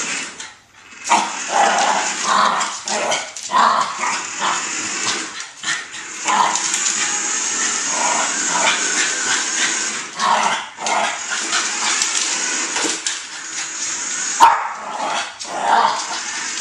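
A small dog barking repeatedly at irregular intervals, the loudest bark a little before the end, over a steady high hiss.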